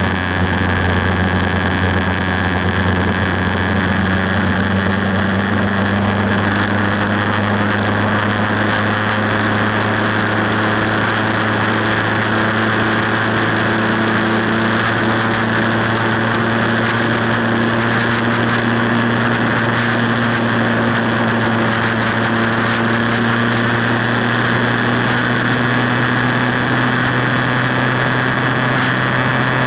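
Motorcycle engine running steadily at highway cruising speed, its pitch creeping up slightly, over steady wind and road noise.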